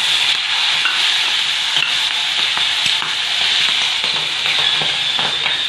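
Green peas frying in hot oil with cumin, mustard and sesame seeds in a metal kadhai, giving a steady sizzle. A perforated metal ladle scrapes and clicks against the pan as the peas are stirred.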